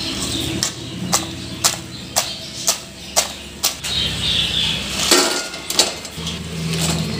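A steel wire spider strainer knocking sharply against the rim of a metal kadai, about two knocks a second, to shake hot oil off freshly fried thattu vadai. About five seconds in, a couple of metal clatters as the vadai are tipped into a stainless steel colander.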